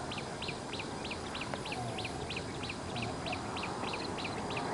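A steady series of short, high, falling chirps, about three a second, from a calling animal, over faint outdoor background noise.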